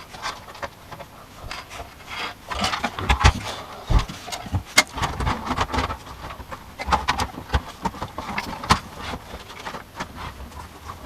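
Irregular knocks, clicks, scrapes and jingling from hardware being handled while a computer power supply is fitted into a PC case.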